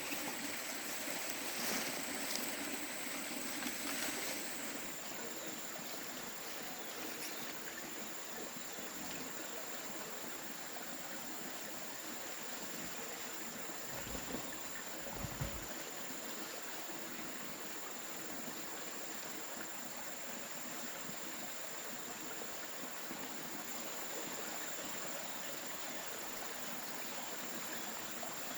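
A stream flowing steadily, with a constant high-pitched whine over it. A few light knocks come in the first few seconds and a couple of soft low bumps about halfway.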